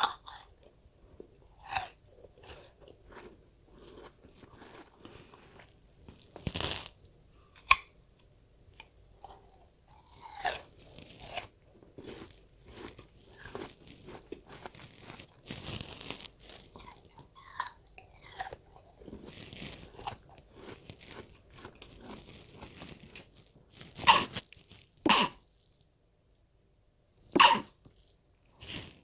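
A person biting and chewing pieces of raw Korean pear close to the microphone, with repeated crisp, juicy crunches. A few louder sharp sounds come near the end.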